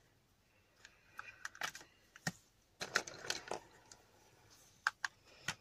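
Light clicks and taps of wooden coloured pencils and small plastic items being handled and set down on a desk, with a short cluster of clatter about three seconds in.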